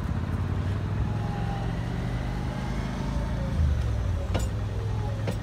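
Amsterdam GVB tram passing close by: a steady low rumble of wheels on rails and running gear, with a faint falling whine and two sharp clicks near the end.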